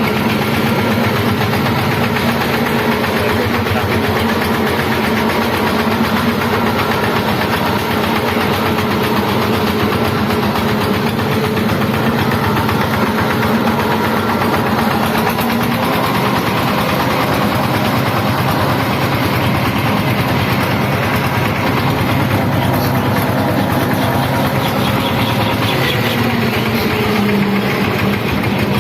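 Changfa diesel engine driving a small load-carrying vehicle, running steadily with an even chugging beat that shifts slightly in pitch partway through as the engine speed changes.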